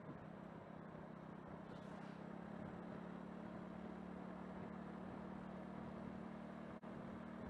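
Steady low hum of a car's engine and tyres, heard from inside the moving car, with a brief dropout near the end.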